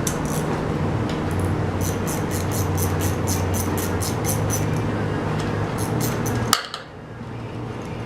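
A steady low machine hum with a run of regular light ticks, about three a second, ending in a sharp click about six and a half seconds in, after which the sound drops away abruptly.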